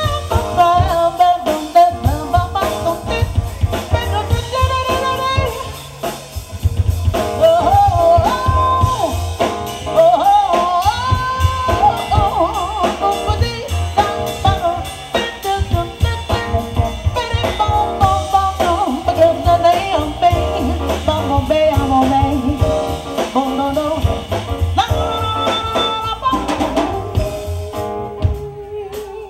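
A female vocalist sings with a live jazz-funk band of drum kit, bass, keyboard, vibraphone and saxophone. The band's groove runs on underneath, easing down briefly about six seconds in.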